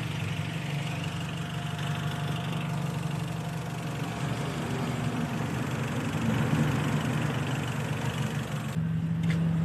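A car engine idling steadily, a low hum that changes abruptly near the end.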